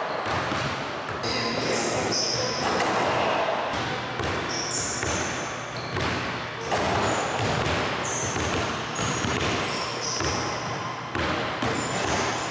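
Basketballs bouncing on a hardwood gym floor, echoing in a large indoor gym, with short high squeaks scattered through.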